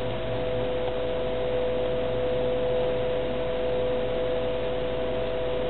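A steady hiss with a constant two-tone hum, unchanging in level throughout.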